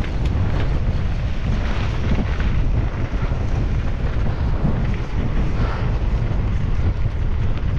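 Wind buffeting the microphone over the rush and rattle of a mountain bike descending rough, rocky trail at speed: a loud, steady low rumble with irregular scraping from the tyres.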